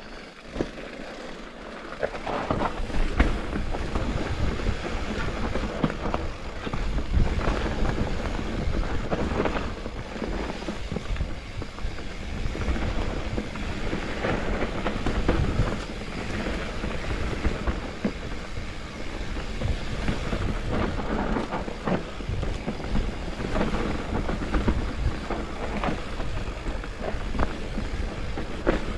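Specialized Turbo Levo electric mountain bike riding down a dirt trail: tyres rumbling over the ground, with frequent knocks and rattles from the bike over bumps. It gets louder about two seconds in and stays rough and uneven.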